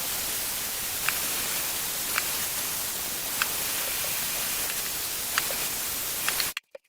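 Hot air styler blowing: a steady rush of air with a few faint ticks, cutting off suddenly near the end.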